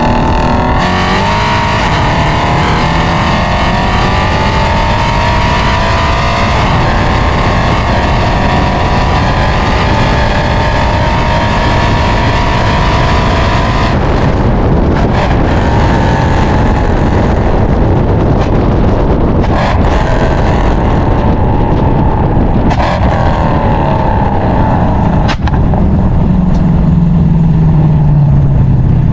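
Exhaust of a 2013 Mercedes C63 AMG's naturally aspirated 6.2 L M156 V8, running catless with long-tube headers, under hard acceleration. The pitch climbs steadily with a shift about seven seconds in. About fourteen seconds in the driver lifts off, the note turns rougher and less tuneful, and the pitch falls low near the end.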